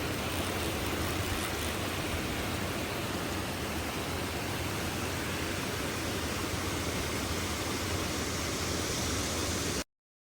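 Steady rushing of a small stream's flowing water, an even hiss that cuts off abruptly near the end.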